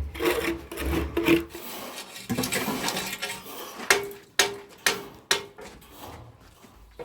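Rough scraping and rasping, then about four sharp taps a little under half a second apart, each ringing briefly.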